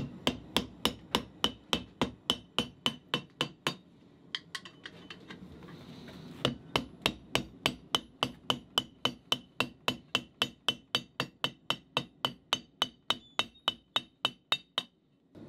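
Hand hammer striking hot steel on the horn of a steel anvil, about three to four blows a second, each with a short metallic ring. The blows thin out for a couple of seconds partway through, then go on at a steady pace and stop just before the end.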